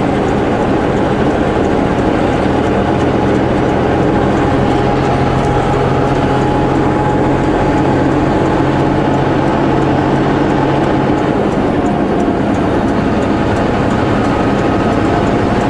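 Semi truck's diesel engine running steadily at highway speed with tyre and road noise, a continuous low drone; the engine note shifts about eleven seconds in.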